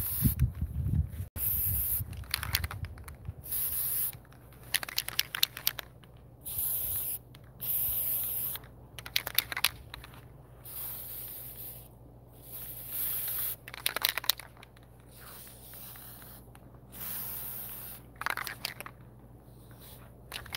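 Aerosol can of cold galvanizing spray paint being sprayed in short hissing bursts, a dozen or more, each under about a second, with brief pauses between.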